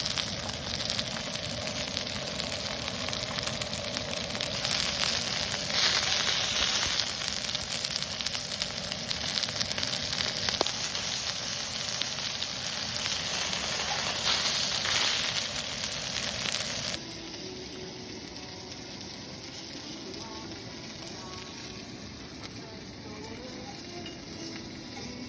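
Food sizzling and frying in a hot pan, a steady loud hiss that cuts off abruptly about two-thirds of the way through, leaving a much quieter background.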